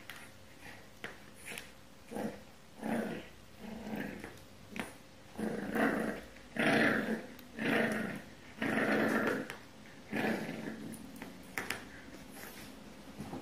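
French bulldog puppy growling in a run of short growls, about one a second and loudest in the middle, as it tugs at a pet bed with its teeth in a game of tug of war.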